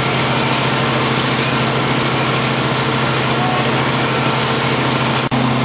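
A fire engine's motor running steadily with a constant hum as it drives the water pump, under a steady rushing noise. There is a brief break in the sound near the end.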